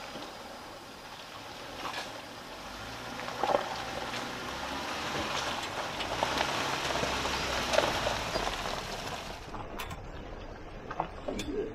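Jeep Wrangler Unlimited Sahara driving slowly past on a wet dirt road: a low engine note under the crunch of tyres on gravel and through puddles, growing louder as it comes near and passes about six to eight seconds in. Near the end, water splashes at the front wheel.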